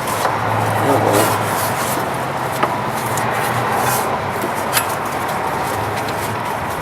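Rubbing and a few light clicks of a new serpentine belt being worked by hand around the engine's pulleys, over a steady background hum.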